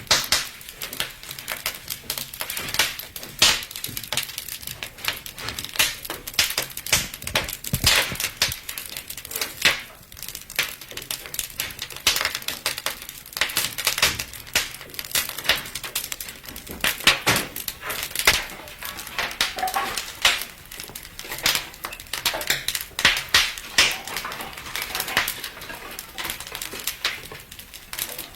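Wood fire crackling, with dense, irregular pops and snaps.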